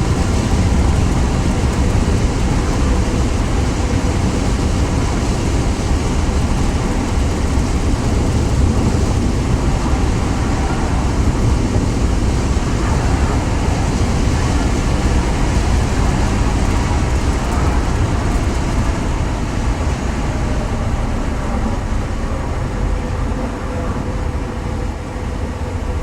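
Ford Crown Victoria's V8 running steadily while driving, with a deep, throaty exhaust note and road noise; the tone comes from a hole near the back of the left exhaust, an exhaust leak. The level eases slightly near the end.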